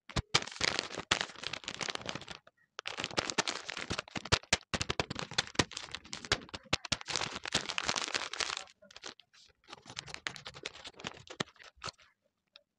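Paper blind bag and folded paper crinkling and rustling as it is handled and unfolded, in dense crackles that thin out to scattered ones about two-thirds of the way through.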